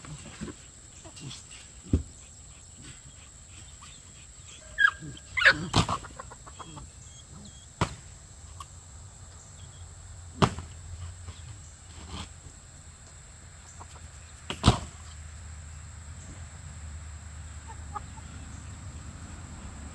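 Chickens clucking, with a brief squawk about five seconds in. Five sharp knocks, spread through, are the loudest sounds.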